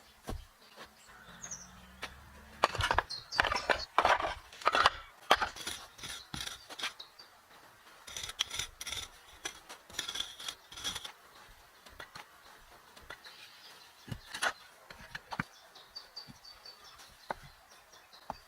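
Irregular clicks and knocks, clustered loudest a few seconds in and again around ten seconds, with scattered single knocks after.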